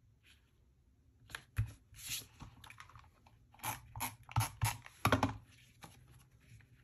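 Creative Memories tape runner laying adhesive onto the back corners of a paper photo mat: several short scratchy strokes, most of them in the second half.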